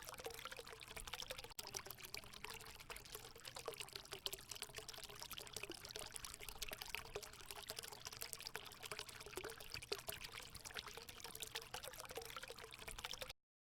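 Water pouring steadily from a bamboo spout into a fountain basin, a continuous splashing trickle with fine drips. It cuts off suddenly near the end.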